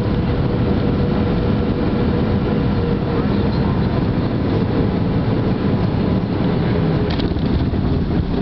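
Airliner cabin noise during the landing roll, heard inside the cabin over the wing: a loud, steady rumble of the engines and the wheels on the runway. A thin steady hum in it fades out about seven seconds in, just before a brief click.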